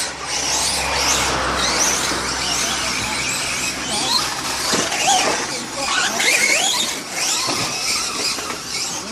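Traxxas radio-controlled car being driven, its high whine and squeal gliding up and down again and again as it speeds up and slows.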